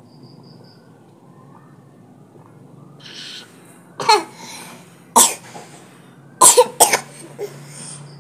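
Coughing: four short, sharp coughs in the second half, the last two in quick succession.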